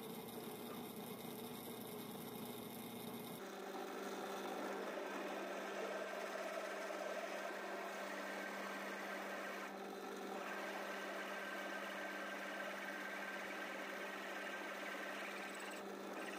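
Benchtop drill press running steadily, its twist bit boring through a metal crank handle, a constant motor hum under the rasp of the bit cutting metal. About three seconds in the sound changes abruptly and grows a little louder.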